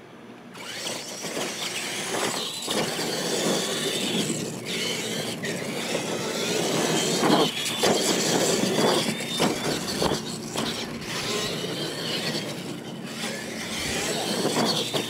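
Two electric R/C monster trucks racing on a dirt track, starting about half a second in: a whine from the motors and gears rising and falling over the rush of tyres on dirt, with a few sharp knocks along the way.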